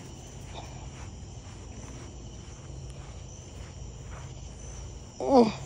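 Crickets chirping steadily over a low hum. About five seconds in, a short loud voice sound rises sharply in pitch.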